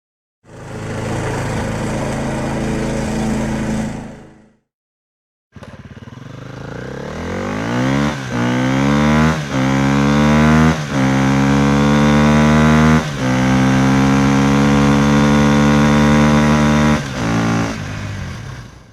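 A vehicle engine sound effect. The engine runs steadily for about four seconds and stops. After a short gap it accelerates, its pitch climbing in several steps as it shifts up through the gears, then holds a steady high note before dropping and fading near the end.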